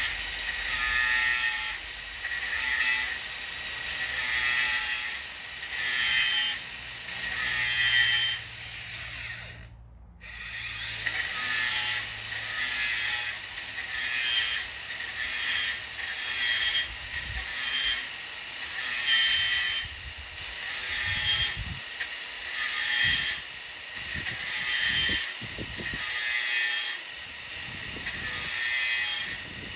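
Flexible sanding block with sandpaper being pushed back and forth by hand over primed car bodywork: even sanding strokes about once a second, with a short break about a third of the way in.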